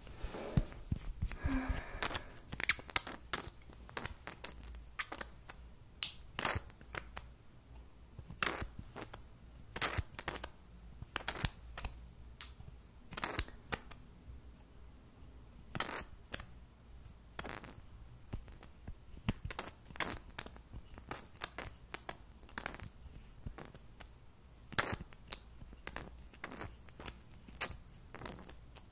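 Plastic liquid-lipstick tubes and their caps handled and tapped close to the microphone: irregular sharp clicks and taps, about one every second or two, with quiet between.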